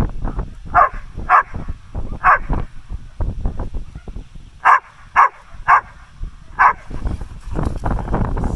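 Beauceron barking at a helper holding a bite sleeve in protection training: seven loud barks in two bursts, three in the first two and a half seconds and four more from about four and a half seconds in.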